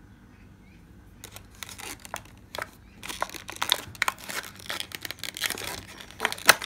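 A clear plastic nail stamper being worked out of the black foam insert of its cardboard box. Irregular rustling and scraping noises start about a second in, with a sharp click near the end.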